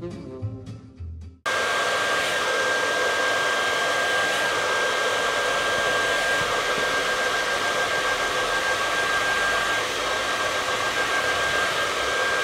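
Handheld hair dryer running steadily, an even rush of blowing air with a thin steady whine over it. It starts abruptly about a second and a half in, cutting off a moment of jazz music.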